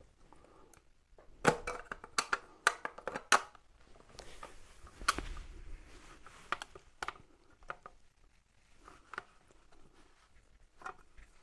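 Looking Glass Portrait display and its stand being handled and fitted together: irregular clicks and knocks of plastic parts, with a brief hiss about four seconds in.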